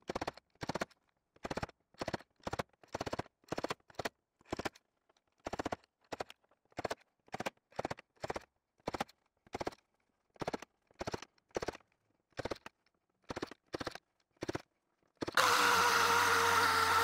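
Spot-welding dent puller working bare steel on a car's rear quarter panel: short sharp clacks about twice a second as the welded tip grabs and the slide hammer pulls a low spot up. Near the end an orbital sander starts and runs steadily.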